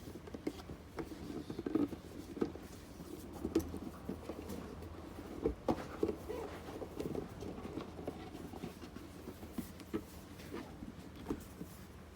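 Packaging being handled: irregular light rustles, scrapes and small taps as a gift box is opened and a handbag is lifted out of its wrapping.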